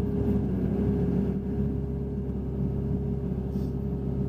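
Hitachi Zaxis 60 USB mini excavator's diesel engine running steadily under working load, with a steady whine over it, heard from inside the cab.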